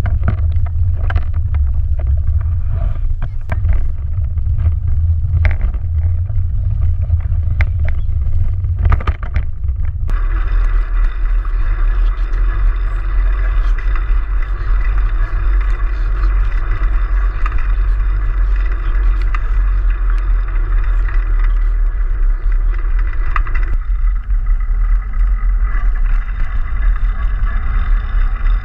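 Steady low rumble and rattle of small air-tyred wheels rolling over concrete paving stones, heard through a camera fixed to the vehicle. First a Kettler pedal go-kart, with many sharp knocks as it jolts over the stones; about ten seconds in, the sound changes to a smoother, deeper rumble from a small bike rolling over the same paving.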